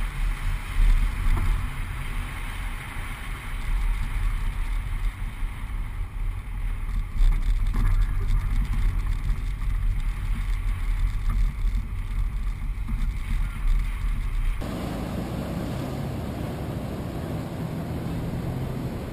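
Suzuki 4WD driving along a wet sand beach, heard mostly as heavy wind rumble on an outside-mounted microphone over the vehicle's running and tyre noise. About fifteen seconds in it cuts abruptly to a steady wash of surf and wind.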